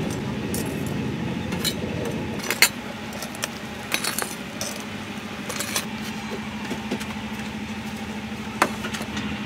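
Metal tongs clinking against a metal tray and the spiny sea urchin shells as grilled urchins are moved off the wire grill: scattered sharp clicks, the loudest about two and a half seconds in and another near the end, over a steady low hum.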